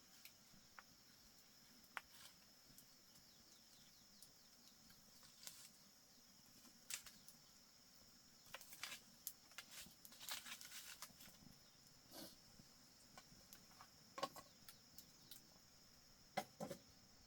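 Near silence: faint outdoor ambience with a steady high hiss and scattered light clicks and taps.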